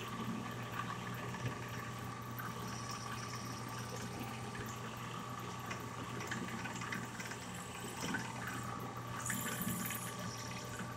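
Handheld electric drill running steadily with a constant whine, its bit boring a hole into a wooden airgun stock.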